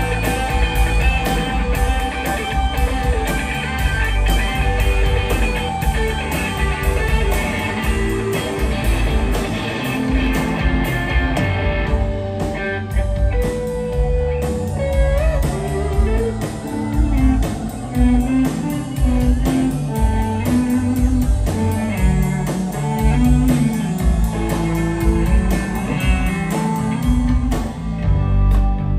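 Live rock band playing, led by an electric guitar solo with bent, sustained notes over keyboards and a heavy low end. The backing thins out about twelve seconds in, leaving the guitar lines more exposed.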